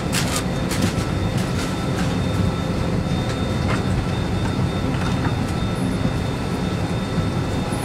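Steady low rumble and hum of an Airbus A320 cabin's air-conditioning while the aircraft is parked for boarding, with faint steady whining tones. Scattered sharp clicks and knocks, bunched in the first half-second and a few more over the next few seconds.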